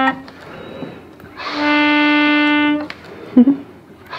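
A single reed of a handmade c.1845 reed organ (melodeon) sounding one steady, reedy note for just over a second, starting about a second and a half in, as air from its bellows passes through the reed with the keyboard removed. A short knock follows near the end.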